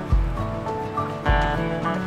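Background music with a steady beat: a deep bass hit about once a second under sustained melodic notes.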